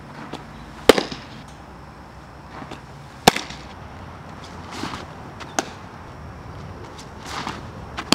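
A softball smacking into a catcher's leather mitt: about four sharp pops a couple of seconds apart, one per pitch, with fainter knocks and scuffs between.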